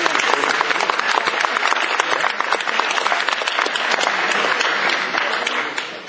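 Audience applauding, a dense patter of many hands clapping that dies away near the end.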